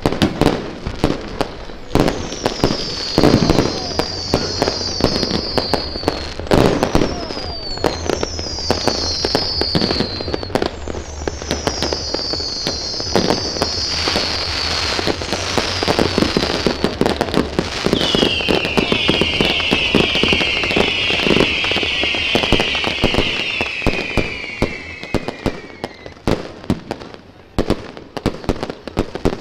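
Aerial fireworks going off in rapid succession, with dense bangs and crackling throughout. From about two seconds in, overlapping high whistles fall in pitch; after the middle a lower run of falling whistles takes over. The barrage thins near the end.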